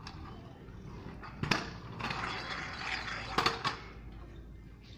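Stunt scooter on tarmac: a sharp clattering knock about one and a half seconds in, then the rough rolling of its small hard wheels on the road, then two more knocks close together about three and a half seconds in as the scooter hits the ground.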